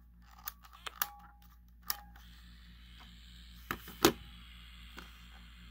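Handheld microcassette recorder's mechanical buttons clicking as they are pressed, about seven clicks spread out, the loudest about four seconds in. A faint steady hiss sets in from about two seconds in.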